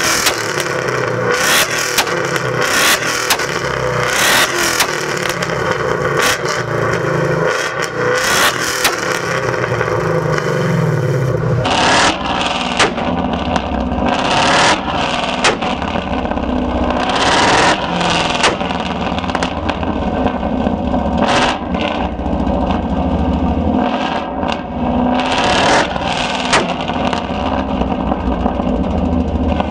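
Ford Mustang's exhaust repeatedly revved against the rev limiter, with rapid, loud popping and banging at the tailpipe, typical of a two-step launch control.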